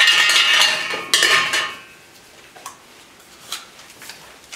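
Draw lots being stirred by hand in a metal trophy cup, clattering against the metal so that the cup rings. There is a fresh clatter about a second in, then the ringing dies away, leaving a few faint clicks as a lot is taken out and handled.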